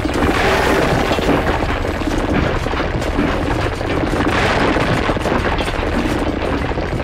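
Continuous rumbling, crumbling noise of ground caving in, an edited earth-collapse sound effect, swelling twice as the sand gives way under a toy railway track.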